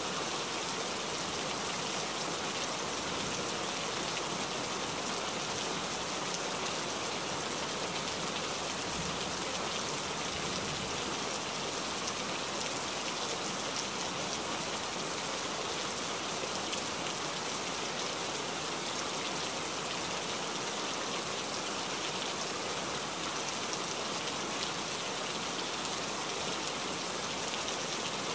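Steady rain, an even hiss with a dense patter of drops that holds at one level throughout.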